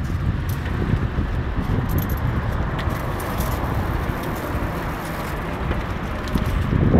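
Steady wind rush on the microphone and rolling noise from a moving bicycle, with faint light clicks and rattles.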